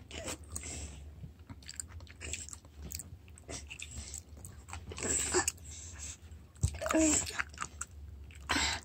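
A toddler chewing soft dried persimmon (gotgam), with mouth noises and scattered small clicks. A brief voice sound comes about seven seconds in.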